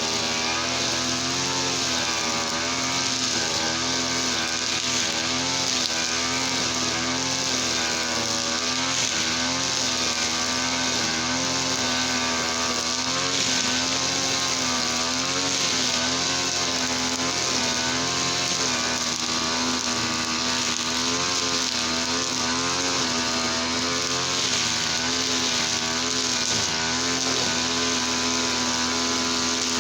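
Easyman TL33 brush cutter's two-stroke engine running steadily at high speed, its pitch wavering slightly up and down.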